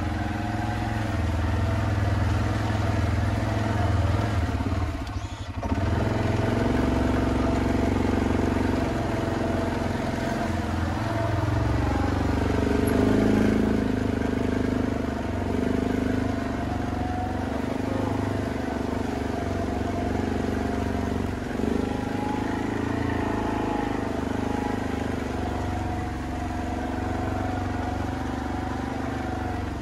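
A motor vehicle's engine running while driving, its pitch rising and falling a little with the throttle, with a brief drop in level about five seconds in.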